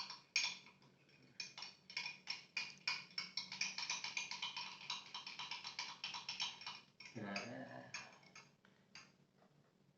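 A spoon clinking rapidly against the inside of a glass while stirring egg yolk and ground pepper together, several light clicks a second, stopping about seven seconds in.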